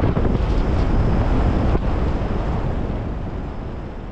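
Wind buffeting the microphone over the road noise of a moving vehicle, fading out steadily through the second half.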